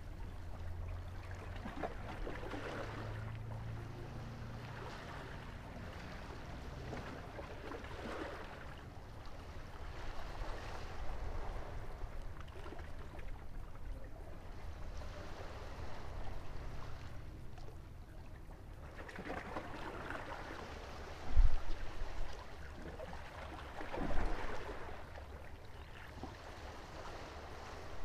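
Small waves washing and lapping against the rocks of a seawall, swelling and fading every few seconds over a low steady rumble, with two dull thumps about three quarters of the way through.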